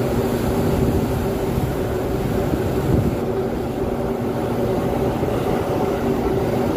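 Steady rumble of a ship's machinery heard on the open deck at sea, with a low, even hum through it and wind on the microphone.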